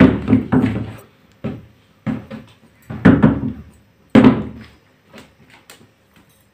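A series of irregular dull thumps and slaps as hands pat and press soft dough balls in a steel bowl of dry flour. The loudest come right at the start and about three and four seconds in.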